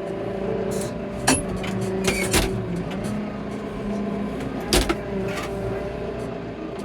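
Tractor engine running steadily, with a few sharp knocks or clanks, the loudest nearly five seconds in.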